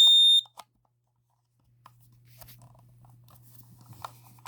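A Kidde Nighthawk KN-COB-B-LS-CA carbon monoxide alarm gives one short, high-pitched beep at the very start. After a pause come faint clicks and handling noises.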